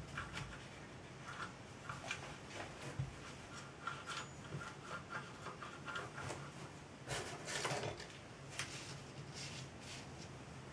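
Small metal parts of a model steam traction engine's flywheel and crank being handled and fitted by hand: light, scattered clicks and taps, with a brief rustle about seven seconds in.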